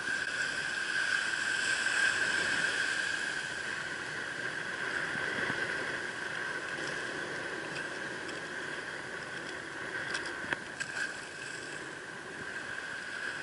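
Shallow surf washing over a coral reef flat: a steady rushing hiss of water. A few light clicks come about ten seconds in.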